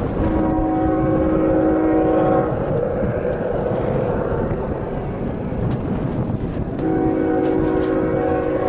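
Union Pacific locomotive air horn sounding two long blasts, each a chord of several tones, about four seconds apart, over a steady low rumble.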